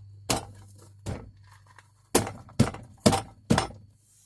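Sharp knocks on a car door's interior handle and trim assembly as it is knocked back into place, six in all, the last four about half a second apart.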